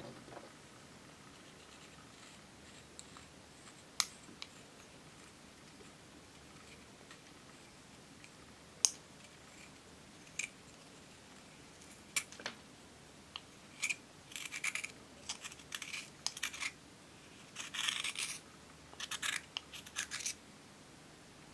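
Metal spatula scraping and crumbling a baked powder blusher out of its clear plastic compact. There are a few separate sharp clicks, then rapid scratching from about two-thirds of the way through.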